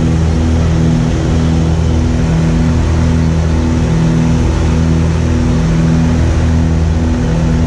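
Steady drone of a small propeller plane's piston engine and propeller heard from inside the cabin during the climb, pulsing slowly about once a second.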